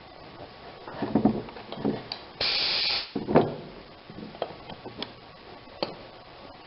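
A short hiss of compressed air, about half a second long, from an air chuck put to the tire's valve stem. Knocks and rubbing from handling the wheel and air hose come before and after it.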